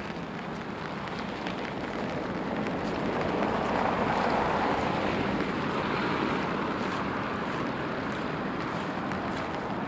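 A vehicle passing on a rain-wet street: its tyres hiss, swelling to the loudest about four seconds in, then slowly fading.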